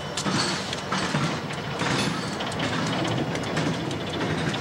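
Diesel locomotives of a CSX unit coal train, an SD70MAC and a GE AC4400CW, with their engines running as the train moves slowly. Irregular clicks and clanks of wheels and couplers over the rails come about every half second to second.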